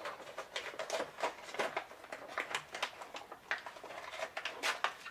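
Plastic toy packaging being handled: a steady run of small crinkles and clicks.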